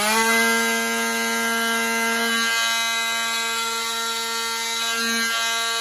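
Milwaukee cordless oscillating multi-tool running at full speed with a steady buzz, its blade trimming the plastic lip of a helmet earmuff cup.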